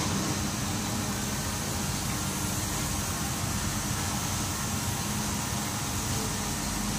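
Steady hum and hiss of factory machines running, with a low steady drone underneath.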